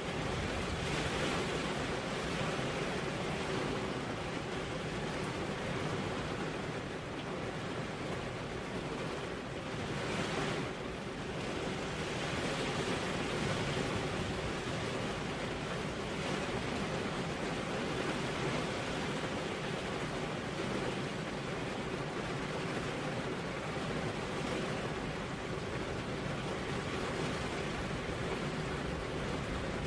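Heavy rain falling steadily on a road, an even hiss with no thunder.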